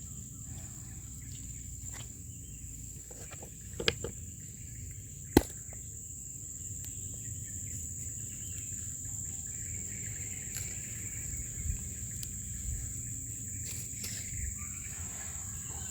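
Insects trilling in one steady, high, unbroken tone, over a low background rumble, with a few sharp clicks; the loudest click comes about five seconds in.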